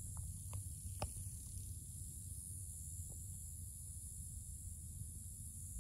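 Quiet outdoor ambience: a steady high-pitched insect drone over a low rumble, with a few faint clicks in the first second and one near the three-second mark.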